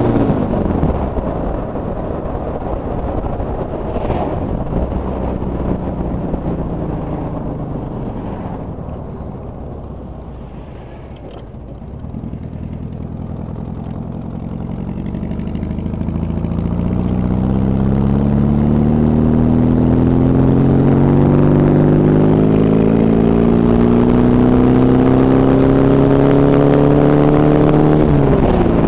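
Boom trike engine heard from the rider's seat. The revs drop sharply at the start and the engine quietens as the trike slows, lowest about ten to twelve seconds in. It then pulls away, the revs climbing steadily for about twelve seconds before dropping sharply with a gear change near the end.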